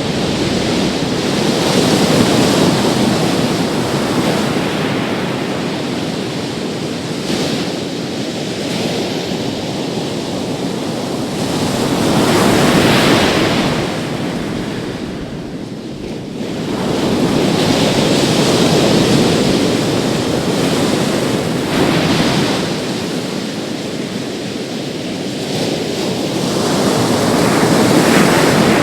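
Big sea waves breaking on a beach: a continuous rushing surf that swells and ebbs every few seconds as each wave crashes and washes out, with the biggest surges about halfway through and near the end.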